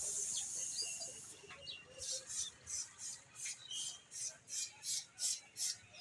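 A steady hiss of spray for about a second and a half, then quick repeated hissing spurts, about two to three a second.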